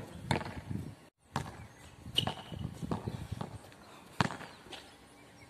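A basketball bouncing on a hard outdoor court: a string of sharp thuds at uneven intervals, mixed with footsteps.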